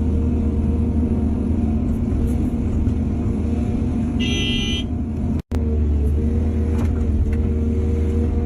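Heavy diesel earthmoving machinery running steadily with a deep, even drone. About four seconds in, a brief high-pitched tone sounds, and about a second later the sound drops out for an instant.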